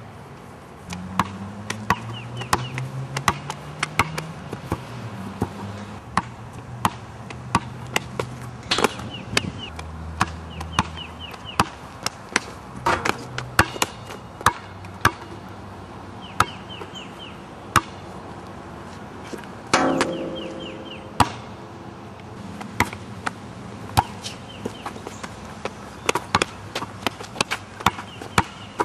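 Basketball being dribbled and bounced on an asphalt court: many sharp, irregular bounces, with low steady tones underneath.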